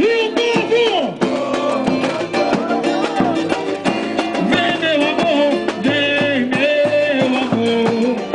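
Live samba-enredo: voices singing a melody over a dense, driving samba drum section and strummed guitars.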